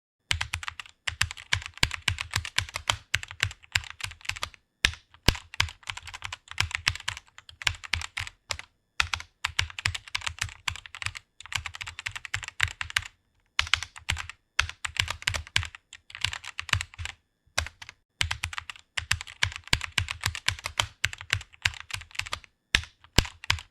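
Computer keyboard being typed on quickly and steadily, a fast run of key clicks broken by about five short pauses.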